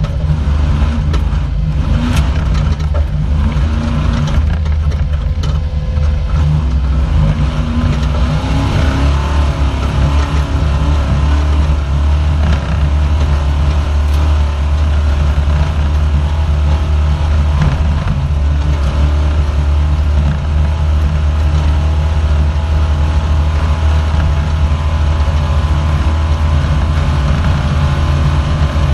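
Off-road race car's engine running hard at speed, loud and steady as heard from inside the car, with a few sharp knocks in the first several seconds.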